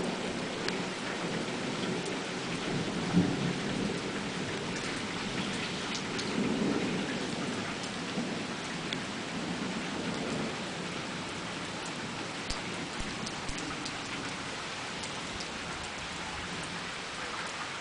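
Steady, heavy rain with rolling thunder that rumbles low in several swells, with a sharp crack about three seconds in and another strong rumble about seven seconds in. Scattered drips tick through it.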